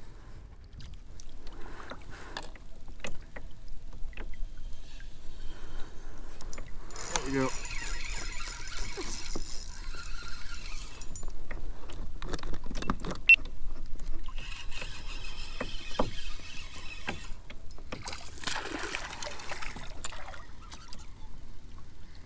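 A hooked smallmouth bass being reeled in on a spinning reel from a fishing kayak and brought to the boat: reel cranking, water and hull noise, and handling clicks in several separate bursts.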